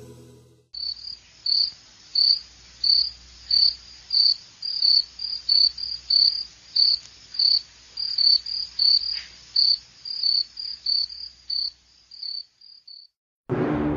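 A cricket chirping: a steady series of short, high chirps, about two a second, which stop a second or so before the end.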